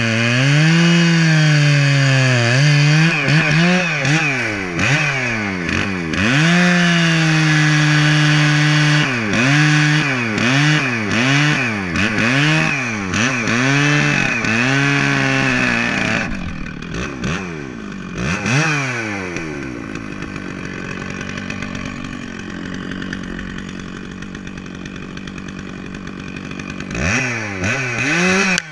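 Stihl 650 Magnum two-stroke chainsaw cutting through a large oak log at high revs, its engine pitch dipping and recovering as the chain loads up in the wood. After about sixteen seconds it drops back to idle, and it is revved briefly near the end.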